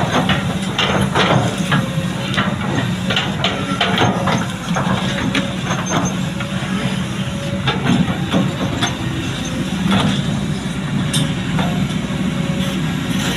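Kobelco SK200 hydraulic excavator running steadily, with repeated knocks and clanks as it works.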